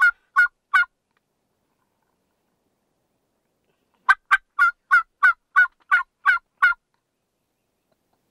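Diaphragm mouth turkey call blown in a run of hen yelps. The last few notes of one run end about a second in, then after a pause of about three seconds a second run of about nine evenly spaced yelps follows, about three a second.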